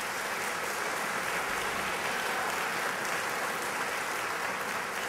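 Audience applauding: a dense, steady sound of many hands clapping.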